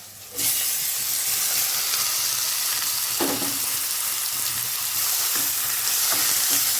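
Spice-and-curd-marinated chicken tipped into hot oil and fried onions in a kadai: loud sizzling starts suddenly about half a second in and runs on as a steady frying hiss, with a short knock about three seconds in.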